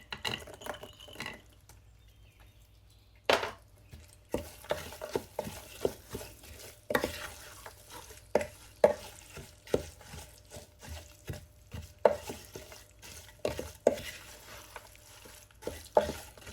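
A spoon stirring a thick mixture of semolina roasted in ghee, with whole nuts and raisins, in a deep cooking pot. It gives irregular scrapes and knocks against the pot, roughly once a second, starting about three seconds in.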